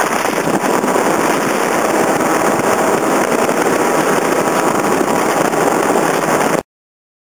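Passenger speedboat under way at speed on the Mekong: a loud, steady mix of engine and wind noise on the microphone. It cuts off abruptly near the end.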